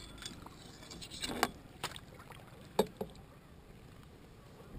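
Water splashing and lapping beside a boat as a trout is held in the water for release, with a few sharp knocks, the loudest about a second and a half and nearly three seconds in.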